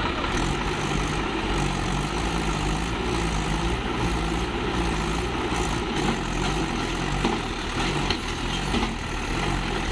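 Swaraj 735 FE tractor's diesel engine running steadily, its pitch wavering up and down about once a second, while the tractor sits stuck in a sand rut.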